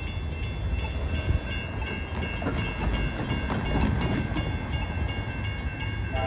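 Railroad grade-crossing warning bell ringing, a quick, even run of high dings about three a second, over a low traffic rumble as a car drives past midway.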